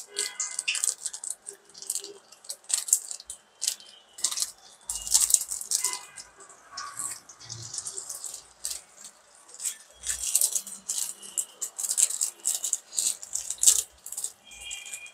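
Paneer samosas deep-frying in hot oil in a karahi: dense, irregular sizzling and crackling of the bubbling oil.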